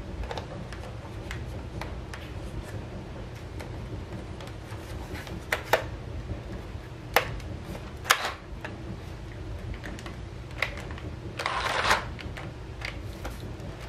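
Scattered sharp clicks and knocks from handling a battery-powered Nerf Rapidstrike blaster, with a short rush of noise about twelve seconds in.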